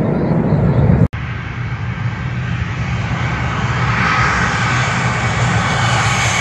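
Jet engines of an Airbus A320 airliner on low final approach, growing louder as it nears, with a rising whine building over the last couple of seconds. About a second in, the sound cuts abruptly from another aircraft's engines at takeoff power.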